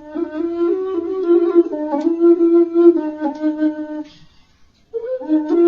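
A flute plays a melody of short stepped notes. It breaks off a little after four seconds in for almost a second, then starts again.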